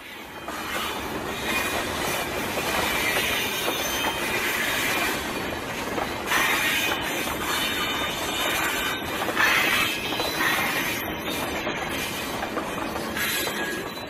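Train running on rails, a dense steady noise that fades in at the start, with brighter high-pitched patches a few times along the way.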